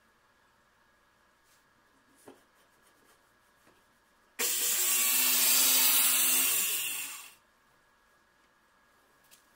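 Makita circular saw switched on with a sudden start, running for about three seconds as it is pushed along an aluminum guide track, then released, its pitch falling as the blade spins down.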